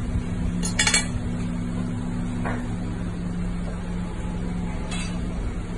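Metal fork clinking against a ceramic serving platter: a quick cluster of clinks about a second in and one more near the end, over a steady low hum.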